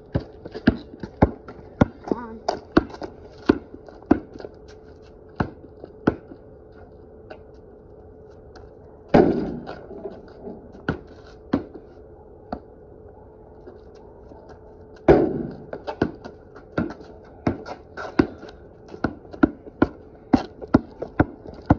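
Basketball dribbled on a concrete driveway: runs of sharp bounces, about two or three a second, with a quieter stretch in the middle and two louder impacts about nine and fifteen seconds in.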